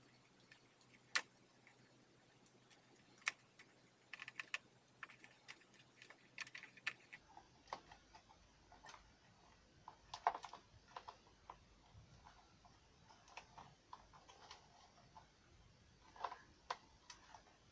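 Faint, irregular clicks and small plastic rattles of wiring connectors and wires being handled inside an electric scooter's deck, with a few sharper clicks standing out.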